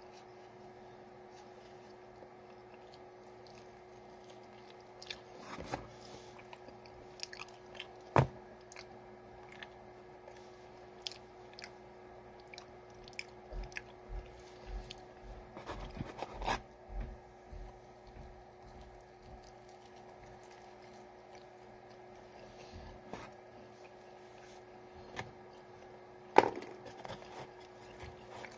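A person eating pizza slices, with scattered chewing and biting crackles and a sharp knock about a third of the way in and another near the end, over a faint steady hum.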